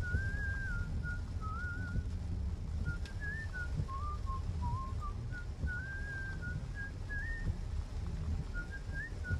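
A whistled tune: one clear pitch moving up and down in short phrases, over the low steady rumble of a car driving.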